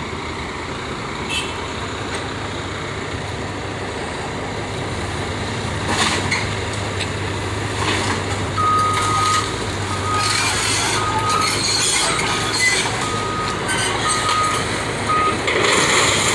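CAT hydraulic excavator engine running steadily, louder from about six seconds in, as it breaks up the wreckage of a wooden house, with several crashes and crunches of splintering timber and debris. A beeping alarm sounds in short repeated beeps through the second half.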